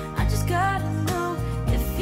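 Background music: a melody with bending, gliding notes over a steady bass and a beat.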